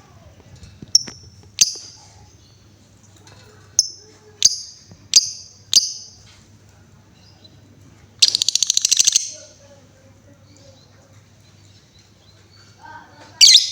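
Female lovebird calling: six sharp, high, short chirps, then about eight seconds in a loud, rapid, rattling trill of about a second (the chatter Indonesian keepers call 'ngekek'), and another loud call near the end.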